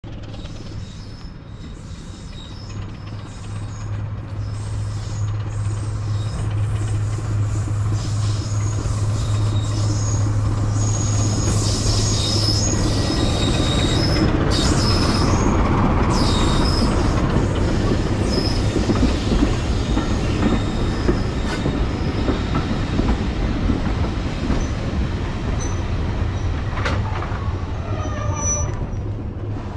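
Class 25 diesel locomotive D7659 arriving at a station, its Sulzer six-cylinder engine running with a steady low note that grows louder as it approaches and passes. The running gear squeals in high tones through the middle as the train brakes, then the coaches roll by with a few clicks near the end as it draws to a stop.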